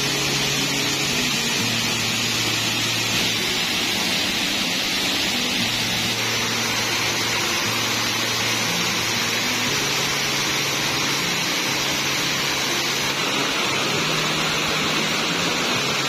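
Waterfall rushing steadily, a dense hiss of falling water, with a soft music track of held low notes underneath.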